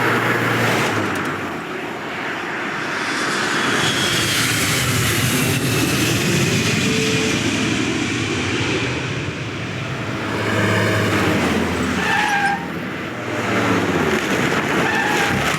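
Animated-film sound effects of cars in traffic: engines running and passing, with tyre noise, continuous throughout. A short pitched tone comes in about twelve seconds in.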